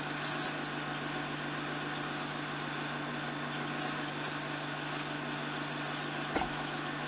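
Steady low hum with an even hiss above it, unchanging throughout, and one faint click about six and a half seconds in.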